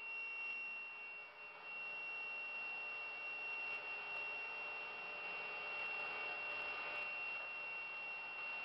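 Electric motor of a double miter saw running steadily, a high steady whine over an even hiss.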